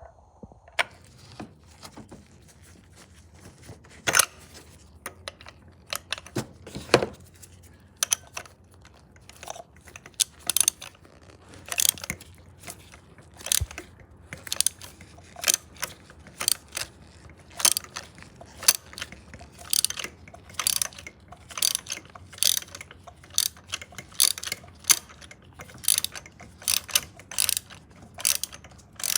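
Hand ratchet wrench clicking in repeated short strokes as it turns a fastener, the sharp clicks coming in uneven groups that grow quicker and more regular in the second half.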